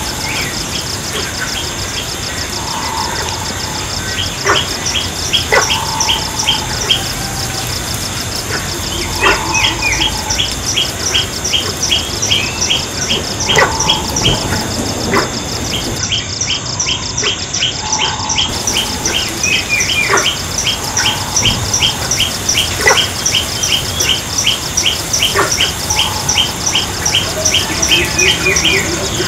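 Birds chirping in rapid, repeated short notes over a steady high-pitched insect trill, with softer lower calls recurring every second or two.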